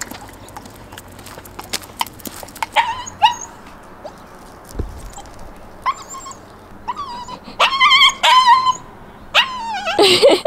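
A puppy barking in short, high yips and whines, a few at first and then a quick run of them in the second half.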